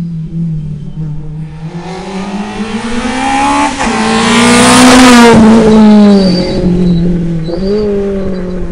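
Rally car coming down the stage at speed and passing close by, its engine loud and revving hard; the engine note drops in pitch as it goes past about five seconds in, then fades away with one more rise in revs.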